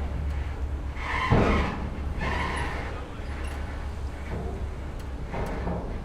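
Ferry's engines giving a steady low rumble as the ship comes into dock, with irregular creaks and clatter over it and a louder knock about a second in.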